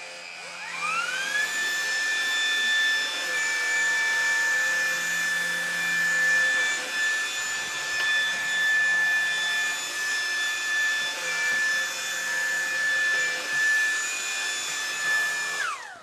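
Cordless upright vacuum with a double brush-roll head switched on: the motor whine rises to a steady high pitch and runs while the rollers drive the head along the tile floor, then falls away as it is switched off near the end.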